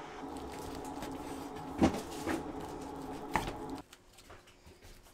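Kitchen knife slicing through a nori-wrapped sushi roll and knocking on a wooden cutting board, three knocks with the first the loudest. Near the end, only faint soft handling sounds as cut sushi pieces are set on a plate.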